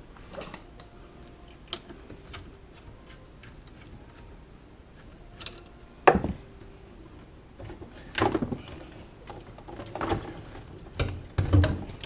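Clicks, clinks and knocks of hands and tools working at a jammed garbage disposal, with a sharp knock about six seconds in and several heavier thuds near the end.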